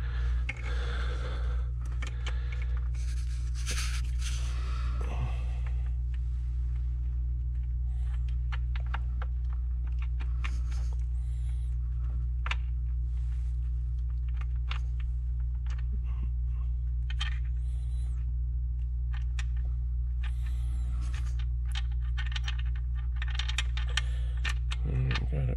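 Scattered light clicks, taps and scrapes of a bolt and fingers working among plastic engine parts and hoses as the bolt is fed by hand into a hard-to-reach hole beneath an intake-manifold solenoid. A steady low hum runs underneath.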